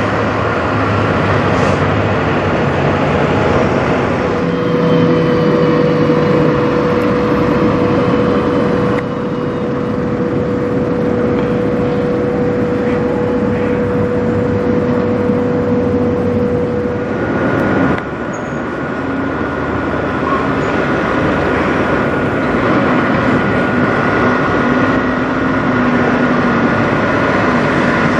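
Diesel engines of semi tractor-trailers running and driving slowly, loud and steady, with the sound changing abruptly twice as the footage cuts between trucks. A steady high whine sits over the engines for much of the first half.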